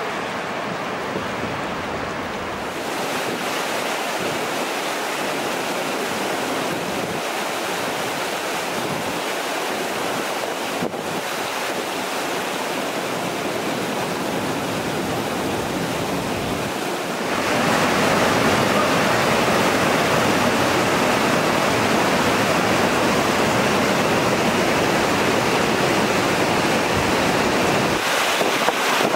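River whitewater rapids rushing steadily, getting louder about two-thirds of the way through.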